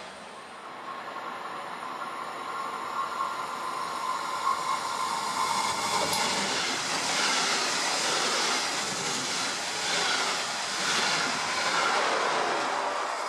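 Regional-Express train of red double-deck coaches approaching and running past at speed. The rush and rumble of wheels on rail grows louder over the first several seconds and stays loud as the coaches go by.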